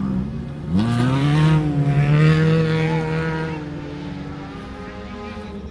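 A racing engine at high revs: its pitch climbs sharply about a second in, holds high for a couple of seconds, then fades away.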